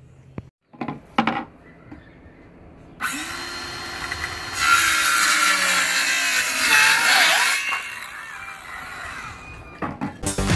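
A few short knocks, then a circular saw spins up about three seconds in and cuts through a wooden board for about three seconds before winding down with a falling whine.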